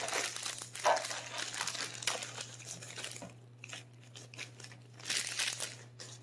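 Thin plastic produce bag crinkling and rustling as cherry tomatoes are worked out of it by hand. The crinkling is dense for the first few seconds, thins out, then comes again in a short burst near the end.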